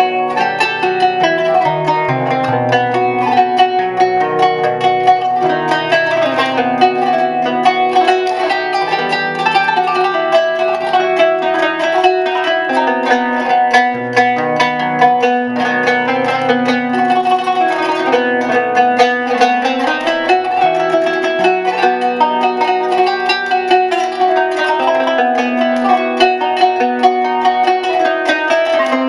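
Background music of quickly plucked strings, like a zither or harp, playing a continuous melody.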